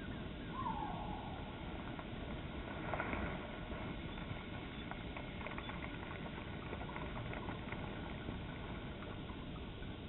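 Slowed-down outdoor sound from a slow-motion replay of boiling water flung into frozen air. It is a low, even rumble with faint crackles and ticks, which swells briefly about three seconds in.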